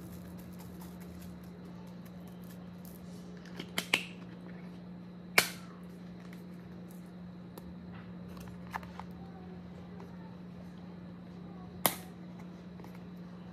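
Seasoning containers handled over a pot: a few sharp plastic clicks and taps as caps are opened and bottles set down, the loudest about five and a half seconds in and another near the end. A steady low hum runs underneath.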